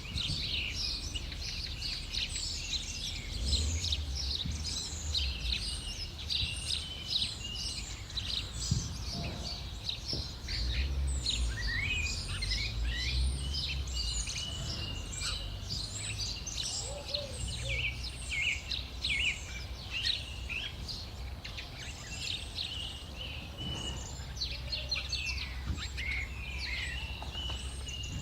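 Many small birds chirping and twittering continuously in a dense chorus, over a low rumble that swells twice.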